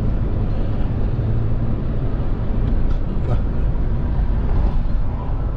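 Steady road and engine rumble inside a moving car's cabin.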